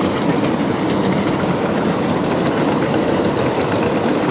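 Miniature 1.5-inch-scale live-steam train rolling past on 7.5-inch-gauge track: a steady rumble of steel wheels under the loaded riding cars and boxcars, with a quick, regular clicking of about three to four beats a second.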